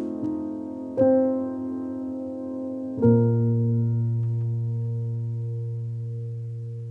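Soft background piano music: a few notes are struck, then a low chord is left to ring and slowly fade.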